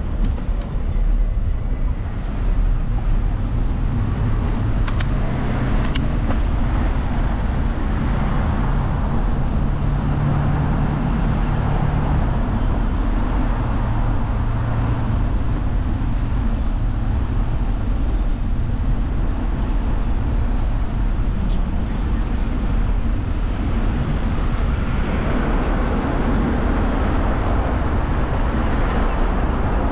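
Steady city street traffic noise heard from a moving bicycle: car engines and tyres on the road, with a low engine hum from about ten to sixteen seconds in.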